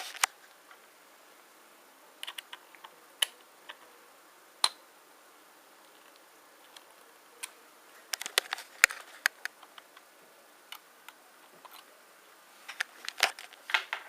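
Scattered sharp clicks and taps of small hard objects being handled, single ones spread out and quick runs of them about two seconds in, around eight to nine seconds, and near the end.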